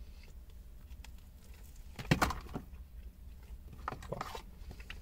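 A cardboard burger box being handled and dropped: a loud rustling clatter about two seconds in, then softer rustles as the burger is lifted to the mouth near the end.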